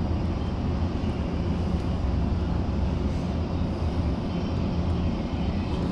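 Steady low engine drone, unchanging throughout.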